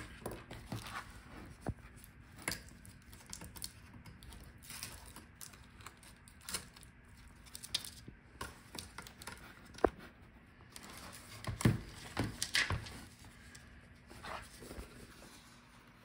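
Hands handling a partly disassembled laptop: scattered light clicks, taps and rustles of plastic chassis parts and a cable, with a sharper click about ten seconds in.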